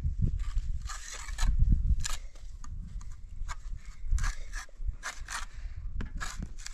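Small hatchet chopping into a wooden log: a run of sharp, irregular strikes, roughly one or two a second.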